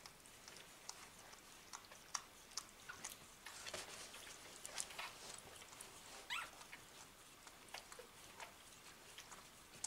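Newborn puppies suckling at their mother: faint, irregular sucking and smacking clicks, with one short rising squeak from a puppy about six seconds in.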